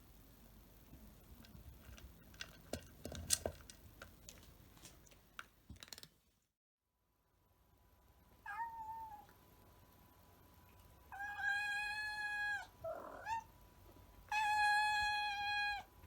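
A cat crunching dry food in a run of sharp crunches, then a cat meowing: one short meow, then two long, drawn-out steady meows with a lower swooping sound between them.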